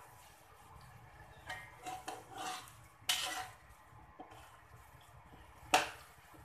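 Slotted spatula stirring chicken soup in a metal wok, scraping and knocking against the pan a few times, with one sharp clack near the end.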